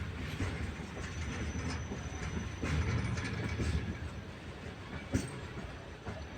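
Express train's wheels running over the track: a heavy low rumble with sharp clicks as the wheels cross rail joints, the loudest click a little past five seconds in. The rumble eases off after about four seconds.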